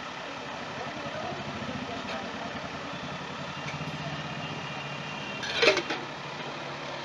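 Street traffic: vehicle engines running steadily, with faint background voices and one short, loud sharp sound a little under six seconds in.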